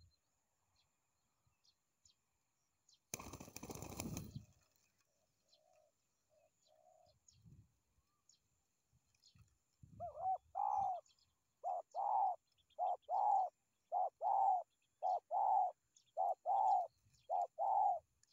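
Spotted dove cooing: a run of about fourteen short, arched coos, mostly in pairs, starting about ten seconds in and going on to the end. About three seconds in there is a brief burst of wing flapping, and a few faint soft coos follow it.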